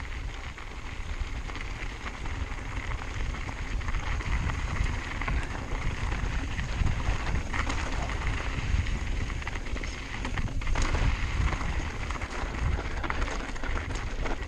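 Mountain bike rolling fast down a rocky dirt trail: knobby tyres crunching over gravel and stones, with scattered clicks and knocks from the bike. Wind buffets the chin-mounted action camera's microphone throughout.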